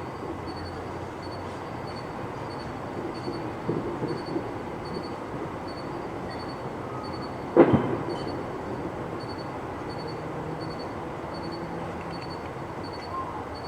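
A firework going off about halfway through: one loud, sharp bang with a brief echoing tail. A few seconds earlier there are three smaller pops, and a steady background rumble runs underneath throughout.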